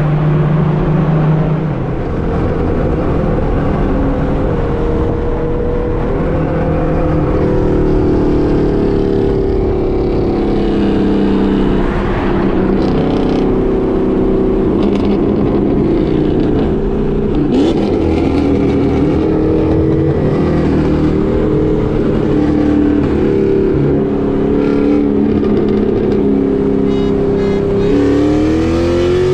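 Car engine running hard, its pitch holding and shifting through the run and rising again near the end.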